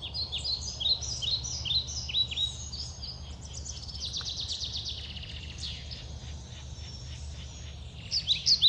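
Wild birds singing: many quick down-slurred chirps, with a fast trill a few seconds in and the chirping growing louder near the end. A steady low rumble lies underneath.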